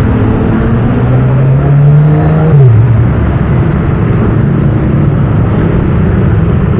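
Street traffic noise: a loud, steady rush of passing vehicles with a nearby engine humming. The engine drops in pitch about two and a half seconds in, as if it is slowing.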